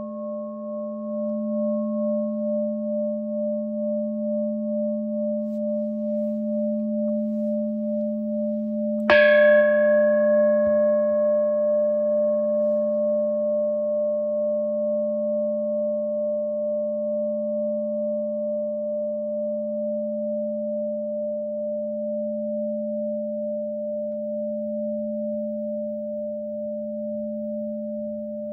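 Large Japanese Buddhist bowl bell (rin) ringing with a deep tone that wavers slowly. It is struck again about nine seconds in: bright overtones sound and fade within a few seconds while the deep tone rings on and slowly dies away.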